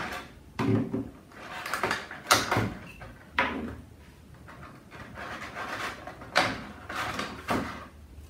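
Handling noise from a plastic insect vacuum and its parts: a series of short knocks, clicks and scrapes, irregularly spaced, about eight in all.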